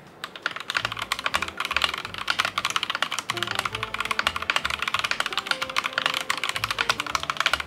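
Fast typing on an Akko One Piece Wano mechanical keyboard with pink Akko CS Jelly Pink switches: a dense, steady stream of keystroke clacks, over soft background music.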